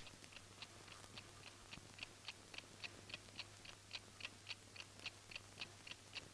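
Faint, even ticking like a clock, about three to four ticks a second, over a low steady hum. A single sharp click comes right at the start.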